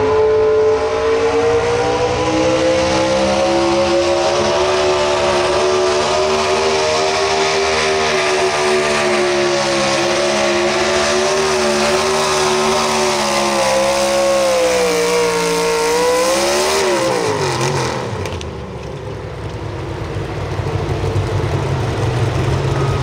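Naturally aspirated pulling truck engine at full throttle through open exhaust stacks as it drags a weight-transfer sled. Its pitch holds high and steady, sags and wavers about 14 seconds in, then drops sharply around 17 seconds to a low idle as the pull ends.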